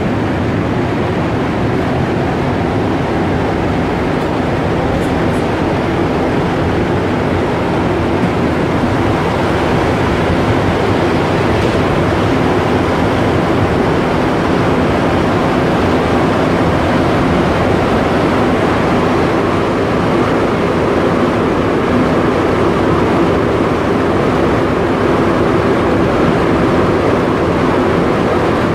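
Montréal Métro rubber-tyred train running through a tunnel, heard from inside the car: a loud, steady rumble of tyres and motors that grows a little louder about nine seconds in.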